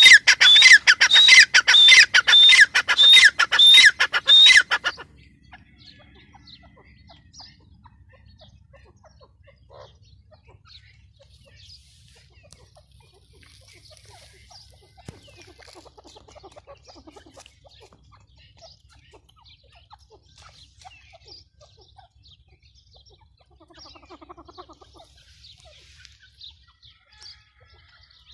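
Grey francolin calling: a loud, shrill series of repeated notes, about two a second, that stops abruptly about five seconds in. After that only faint, scattered chirps remain.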